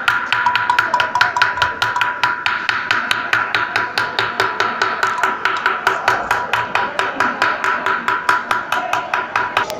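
Rapid, evenly spaced knocking, about five knocks a second, over a steady high ringing tone.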